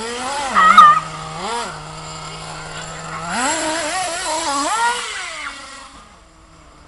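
Radio-controlled model car's motor buzzing and revving in bursts as it is driven. The pitch rises and falls, with a short loud spurt about a second in and a longer high-revving spell from about three to five seconds, then it fades away near the end.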